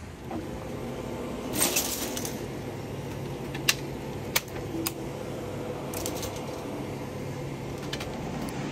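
Plastic gallon water jugs handled on a metal store shelf: rustling and knocking, with two sharp clicks a little under a second apart midway, over a steady store hum.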